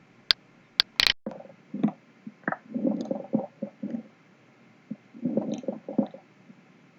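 Stethoscope recording of breath sounds with coarse crackles: low-pitched crackling in two breaths about two and a half seconds apart, after a few sharp clicks about a second in. Coarse crackles are the sound of terminal or respiratory bronchioles popping open, as in pneumonia or bronchitis.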